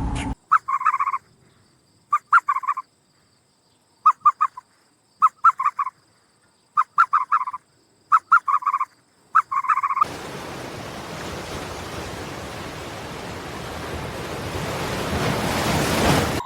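Repeated short rattling animal calls, about eight bursts of rapid pulses with gaps of silence between them. About ten seconds in they give way to a steady hiss of noise that grows louder for the last six seconds and then stops abruptly.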